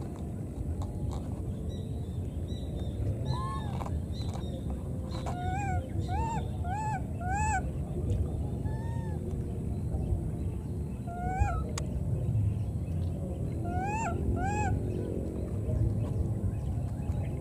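Baby macaques giving short, high, rising-and-falling coo calls: about nine calls, some single, with a quick run of four about six seconds in and a pair near the end, over a steady low background noise.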